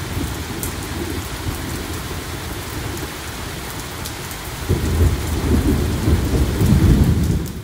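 Steady rain with scattered drops ticking. Thunder rumbles low from about five seconds in, growing louder near the end.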